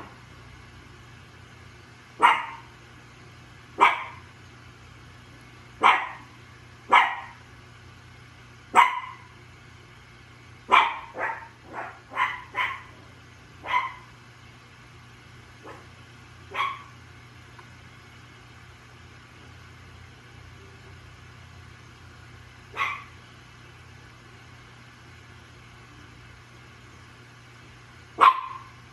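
A dog barking: single sharp barks at uneven intervals, a quick run of several barks about halfway through, then only two more barks spaced well apart. A steady low hum runs underneath.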